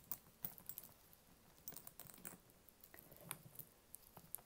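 Faint, scattered small clicks and clinks of a gold metal chain strap woven with leather, and its hook clasps, being unhooked and moved about on a leather shoulder bag.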